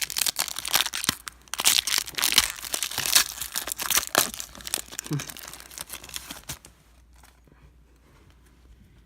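A trading-card pack's plastic wrapper being torn open and crinkled by hand, a rapid crackling that stops about two-thirds of the way through, leaving only faint handling.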